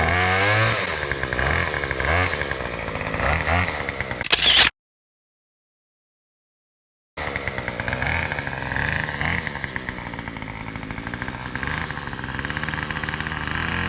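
Chainsaw running and revving up and down again and again, as when cutting a tree. It cuts off abruptly a little under five seconds in, and after a few seconds of dead silence it runs again more evenly.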